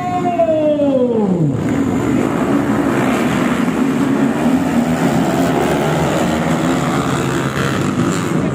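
A long wail slides down in pitch and dies out about a second and a half in. Then a pack of trail motorcycles launches together from the start gate, many engines revving hard at once and carrying on loud and steady.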